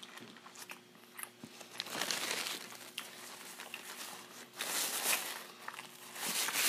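Close-miked chewing of a burger with small wet mouth clicks, then paper napkin and burger wrapper crinkling in several rustling bursts as the mouth is wiped.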